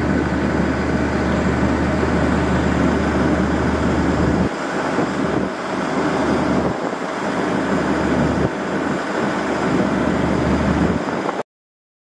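Loud outdoor rumble and hiss with no clear single source. The deep rumble holds steady for the first four seconds or so, then comes and goes. The sound cuts off abruptly near the end.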